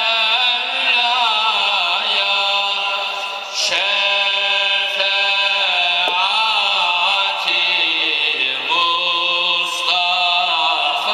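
Music with a chant-like singing voice, its long notes wavering slowly up and down.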